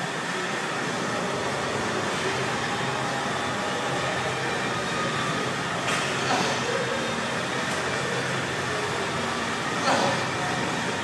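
Steady rushing background noise of a gym weight room, with two short sharp noises, about six and ten seconds in.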